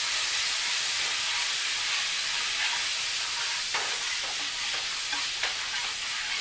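Red wine sizzling in a hot frying pan as it deglazes, with a nylon spatula scraping and stirring the pan bottom a few times. The steady hiss eases off a little.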